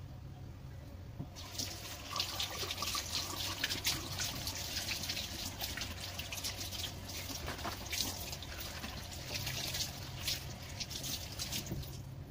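Kitchen tap running onto a bunch of long beans being rinsed in a sink, the water splashing and spattering against the beans and the basin. It starts about a second in.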